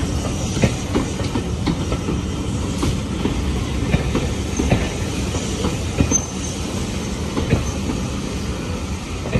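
Railway passenger coaches rolling past, a steady low rumble with irregular clicks and knocks as their wheels cross rail joints.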